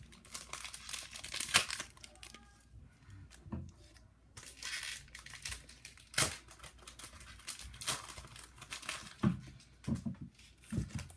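Foil wrapper of a Pokémon TCG Primal Clash booster pack being torn open and crinkled, the crackling coming in fits and starts with short pauses.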